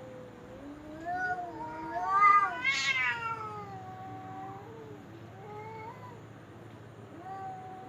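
Cat yowling: long, drawn-out cries that waver and glide up and down in pitch, loudest and shrillest about two to three seconds in, then trailing off into lower, quieter moans.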